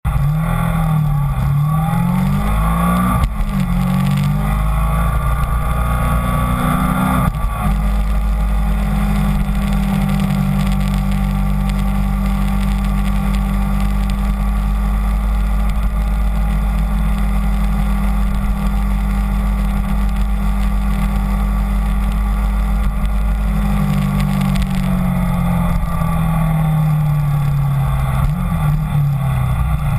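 Kawasaki Ninja 250 parallel-twin engine under way. The revs climb, drop suddenly about three seconds in, climb again and drop about seven seconds in as it shifts up. It then runs at a steady cruise, and near the end the revs fall and rise again as the speed changes.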